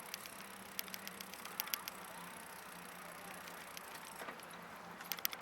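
Bicycle being ridden: a steady rush of rolling, broken by short clusters of light metallic rattling and clicks about a second in, near two seconds, and again near the end.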